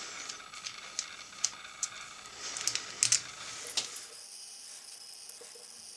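Scattered small clicks and taps, a cluster of sharper ones about three seconds in, as a hex key works the small screws out of a plastic landing-gear retract casing and the unit is handled.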